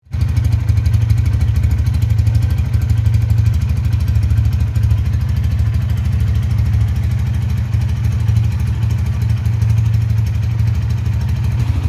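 Honda Tiger Revolution (GL200) single-cylinder four-stroke engine idling steadily, heard close to its chrome muffler.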